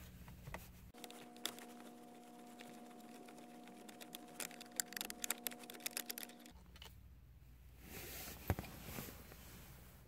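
Small irregular clicks and ticks of a Phillips screwdriver turning a screw out of a plastic steering-column cover, growing busier about four seconds in and stopping about two thirds of the way through, with one sharp tick near the end.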